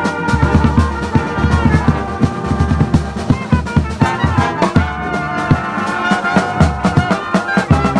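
Brass band playing a lively tune: trumpets and trombones over a steady low beat.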